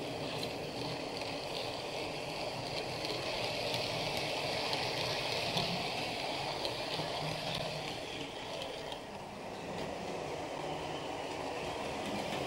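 OO gauge model train, a Hornby D16 locomotive pulling Collett coaches, running along the track. A steady rolling rumble of the wheels on the rails with faint clicks over the track joints, slightly louder as the coaches pass close by in the middle.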